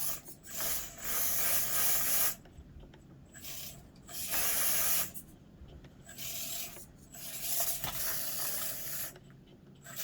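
Small SCX24 Deadbolt RC crawler's motor and gears whirring in repeated short throttle bursts, with brief pauses between them.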